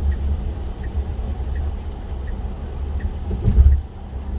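Low steady tyre and road rumble inside the cabin of a Tesla Model 3 driving on a wet road, with a turn-signal indicator ticking about once every 0.7 seconds during a lane change. A louder low thump comes about three and a half seconds in.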